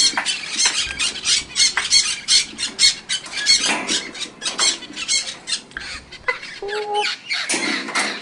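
Parrot chattering in a rapid run of short, harsh squawks, several a second, with a brief whistled note about two-thirds of the way in.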